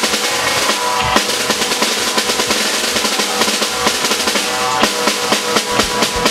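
Rock drum kit played alone at speed: rapid snare strokes and rolls with cymbals, and no bass under it.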